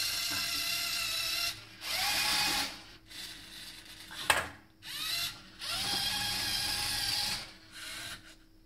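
Lego Mindstorms servo motors whirring with gear chatter in start-stop runs as the robot's gantry travels along its rails. Each run rises in pitch as it starts, and there is one sharp click about four seconds in.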